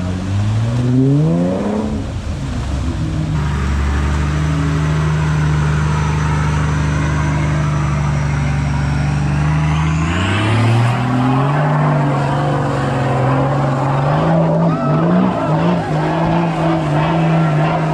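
Toyota LandCruiser four-wheel drives climbing a muddy, rutted track, the engine revving up at the start, holding steady, then revving up again about ten seconds in.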